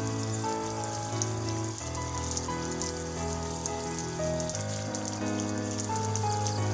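Small sprinkler on a PVC irrigation pipe spraying water onto dry coconut fronds and soil, a steady hissing patter like rain. Background music with held chords that change every second or two plays under it.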